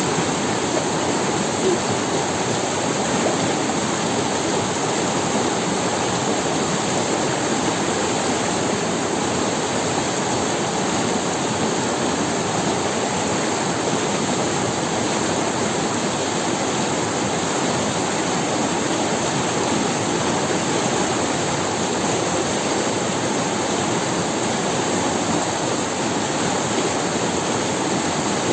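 River water rushing and splashing over stones in a steady, unbroken wash.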